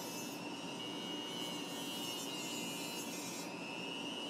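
Rotary tool with an abrasive cut-off wheel spinning at high speed and cutting through a hardened steel gauge pin: a steady high whine that wavers slightly in pitch.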